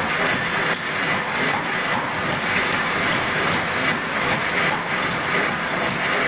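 Forge-shop machinery running steadily: a dense, even hiss and hum with no distinct hammer blows.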